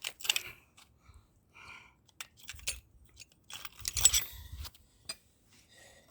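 Metal hand tools clinking and knocking: a 13 mm socket and wrench being handled and fitted for the brake caliper bolts, in scattered sharp clicks with a busier cluster about four seconds in.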